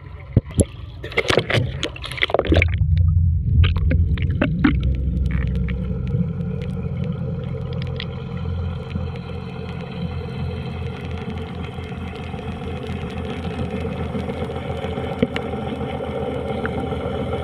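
A few sharp knocks and clatter, then about two and a half seconds in a boat's motor comes on with a loud low rumble and settles into running steadily.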